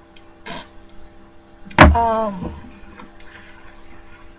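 A woman's short wordless vocal sound, falling in pitch, about two seconds in, starting with a sharp click; a soft breath about half a second in, over a low steady electrical hum.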